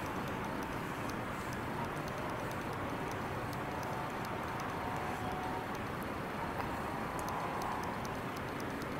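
Steady background hiss with faint high ticks scattered through it.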